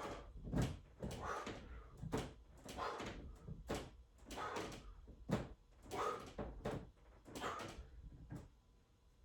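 A person working through a set of weightlifting reps: a regular series of knocks, each followed by a hard rushing breath, about one every second. The series grows fainter near the end.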